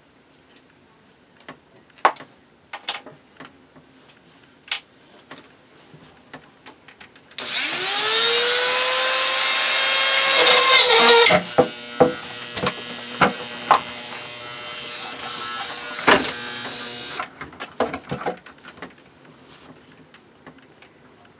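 Small metallic clicks as a bit is fitted into a flexible-shaft rotary tool, then the tool's motor spins up with a rising whine about seven seconds in and runs, dropping lower as the bit works into the wooden board with more clicks, and stops near the end.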